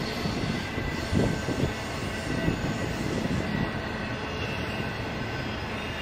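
Intermodal freight train of trailers on flatcars rolling past: a steady rumble and clatter of wheels on rail, with a few louder knocks in the first half and a faint thin wheel squeal over it.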